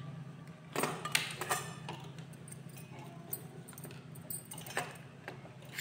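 Light clinks and jingles of beads and bangles as hands work a beaded tassel on needle and thread, a few sharp ones clustered about a second in and another near the end. A steady low hum sits underneath.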